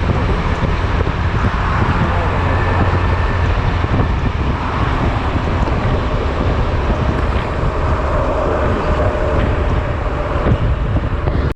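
Steady wind and road rumble with engine noise while riding a Honda Silver Wing maxi-scooter, heavy low buffeting on the camera's microphone. The sound cuts off abruptly at the very end.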